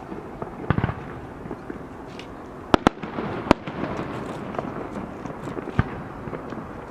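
Fireworks going off: a quick cluster of bangs just under a second in, two sharp bangs close together near three seconds, another half a second later and one more near six seconds, over steady background noise.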